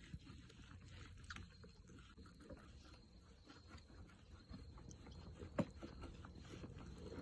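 Near silence: faint low background hum with scattered small clicks and taps, one sharper click about five and a half seconds in.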